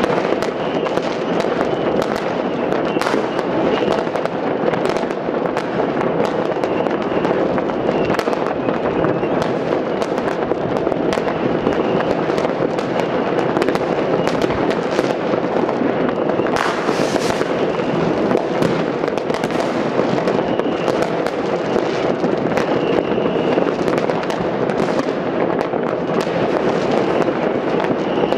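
New Year's Eve fireworks, firecrackers and rockets bursting all over a city: countless bangs overlapping into a continuous crackle with no let-up.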